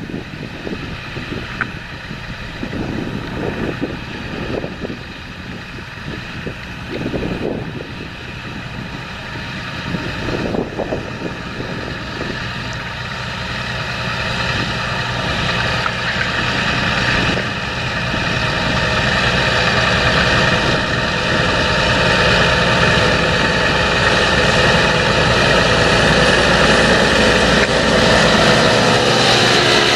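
John Deere 7230R tractor's diesel engine running steadily under load while pulling a seed drill, growing gradually louder as the tractor comes close.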